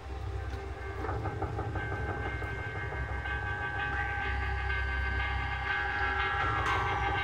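Music of held, droning notes: several steady pitches sounding together over a deep low hum, with higher notes joining partway through and a short falling slide near the end.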